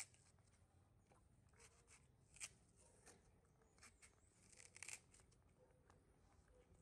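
Faint scraping of a knife paring the skin off a firm fruit: a few short strokes, the sharpest about two and a half seconds in and a quick cluster near five seconds.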